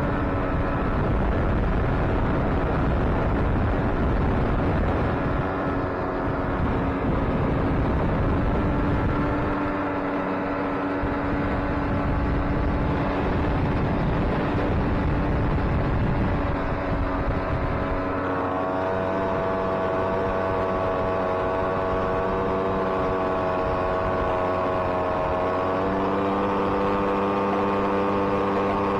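Jet boat engine running steadily under way, with wind buffeting the microphone. The engine note steps up in pitch about two-thirds of the way through and shifts again near the end.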